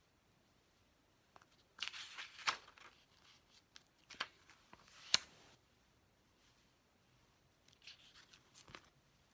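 Personal-size Filofax ring-binder planner being handled and leafed through: paper pages rustling and sharp clicks. A run of rustles and clicks starts about two seconds in, with the sharpest click around five seconds, then a few softer rustles near the end.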